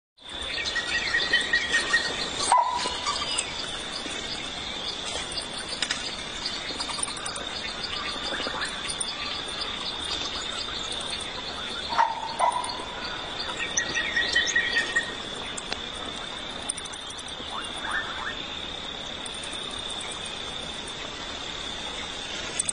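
Steady high-pitched drone of insects, with scattered bird calls over it: a few short calls a couple of seconds in and again around the middle.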